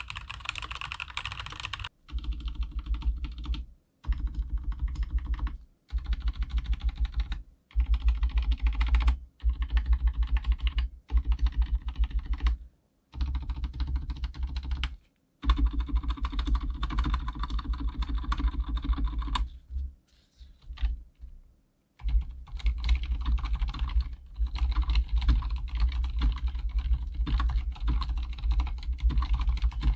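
Typing on an Archon K79 mechanical keyboard with Cherry silent red switches and PBT keycaps, in quick runs of keystrokes a few seconds long with short pauses between them. Over the last third it becomes one continuous run.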